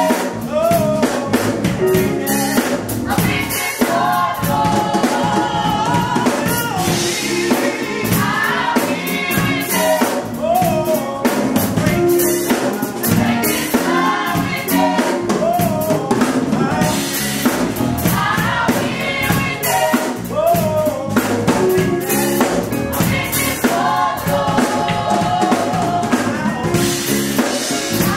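Gospel group of women singing live together into microphones, the voices amplified through the church's sound system, over a steady drum beat.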